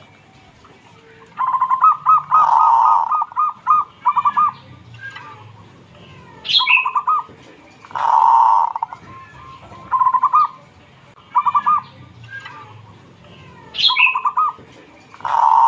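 Caged local zebra dove (perkutut) cooing. It repeats phrases of quick stuttering notes and longer held coos every second or two, starting about a second and a half in.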